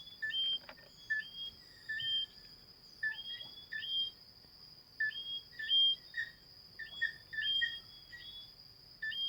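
Several whistling frogs calling, each call a short low note jumping up to a higher whistle. The calls repeat and overlap, at a few a second.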